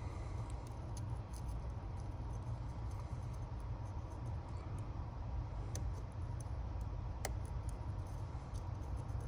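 Faint small clicks and ticks of a Lishi pick working inside an old Ford lock as it is picked, with one sharper click about seven seconds in, over a steady low rumble.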